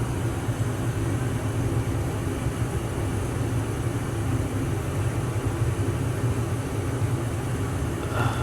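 Steady low rumbling hum with a faint hiss over it, unchanging throughout.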